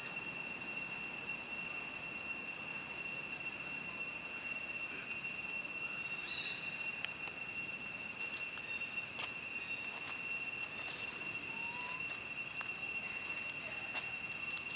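Steady chorus of insects singing, a constant shrill high-pitched tone that does not let up, with a few faint clicks over it.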